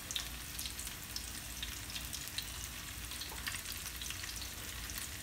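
Flour-dusted red snapper frying in hot oil in a pan: a steady sizzle with scattered small pops and crackles.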